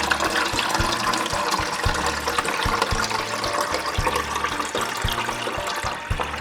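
Water being poured into the water reservoir of a Keurig K425 coffee maker: a steady splashing fill.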